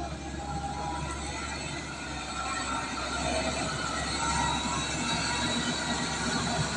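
Heavy diesel earthmoving machine, the wheel loader, running under load, with steady higher whining tones over the engine; it grows a little louder about three seconds in.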